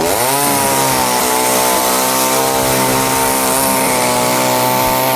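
Chainsaw running steadily; its pitch dips a little as it starts, then holds even.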